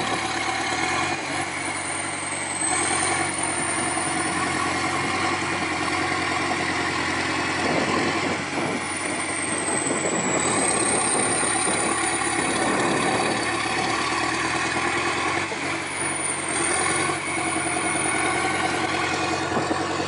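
A vehicle's engine running steadily at a constant speed, with small swells in loudness.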